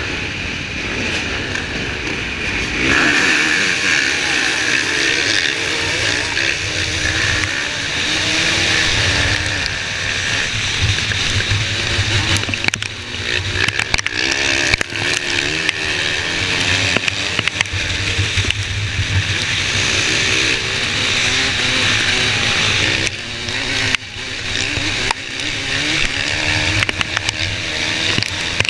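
Off-road motocross bike engine heard from the bike itself, revving up hard about three seconds in as it launches from the start line. It then runs at full throttle across rough grass, its pitch rising and falling with each gear change and bump, with other race bikes' engines around it.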